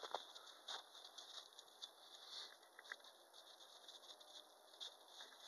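Faint, irregular crunching of footsteps in snow, with a few sharper crackles near the start.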